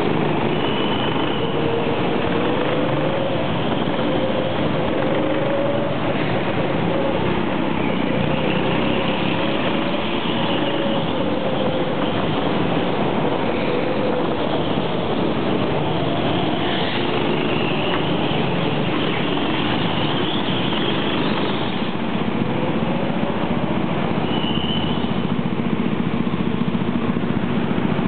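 Go-kart engine running as the kart drives around the track, its pitch rising and falling with the throttle, with a few faint high squeals along the way.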